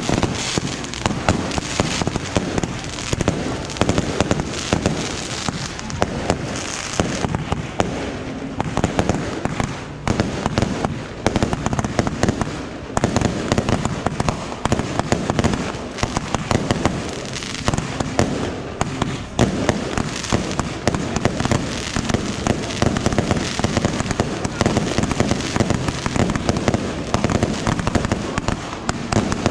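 Dense, unbroken barrage of fireworks, many sharp pops and crackles every second with no pause, typical of massed bottle rockets and firecrackers going off all around.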